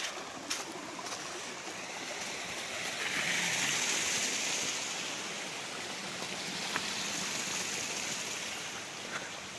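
Running water of a small stream beside a footpath: a steady rushing that swells a few seconds in and eases off again, with a few faint clicks.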